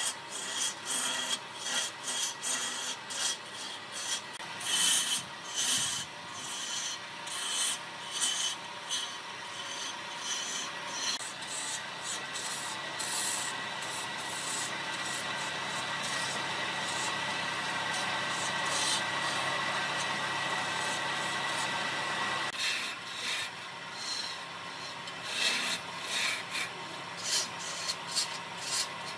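Rapid, repeated rubbing strokes of an abrasive against a hard workpiece surface. In the middle stretch they blend into a steadier, even rasp, then break back into separate strokes near the end.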